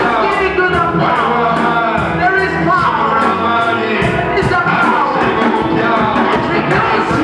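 Live church worship music: singing voices over a band with a steady, quick drum beat.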